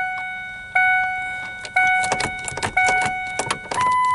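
Car warning chime dinging about once a second, each ding fading out, with light clicks and rattles from the shifter parts being handled. Near the end the chime switches to a higher tone.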